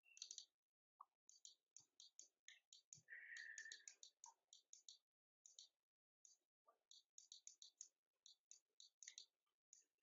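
Near silence with faint, rapid clicks in quick clusters: a stylus tapping and writing on a tablet screen, with a short faint scratch about three seconds in.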